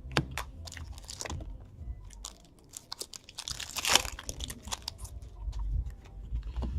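Trading-card packs and cards being handled: crinkling wrapper and small clicks and scrapes, with a louder rustle about four seconds in.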